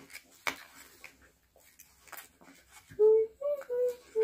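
A child humming a few short notes with her mouth closed, starting about three seconds in. Before that, faint crinkles of a sweet wrapper being handled.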